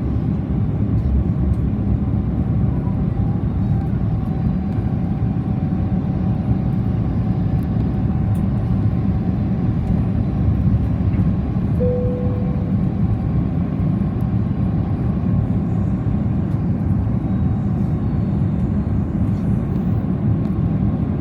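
Steady low rumble inside the cabin of an Airbus A330-300 in flight, its Rolls-Royce Trent 700 engines and the airflow heard from a passenger seat, with a faint steady whine above it. A brief tone sounds about halfway through.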